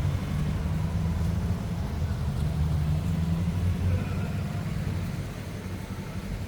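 Low, pulsing rumble of a running motor-vehicle engine, which fades about five seconds in.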